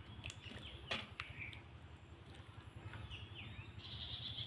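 Faint bird chirps, short quick falling calls, over a low steady hum, with a light metal clink about a second in as a ladle scoops pitha in milk from a steel pan.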